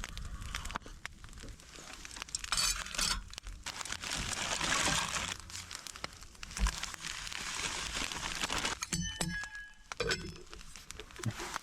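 Rustling and crinkling handling noises, with a few light ringing clinks about nine seconds in.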